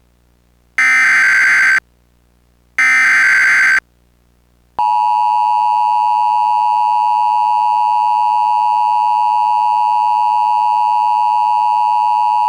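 Emergency Alert System tones. First come two one-second SAME header data bursts, a second apart, the last two of a three-burst header. Then, about five seconds in, the steady two-tone EAS attention signal (853 and 960 Hz) starts and holds.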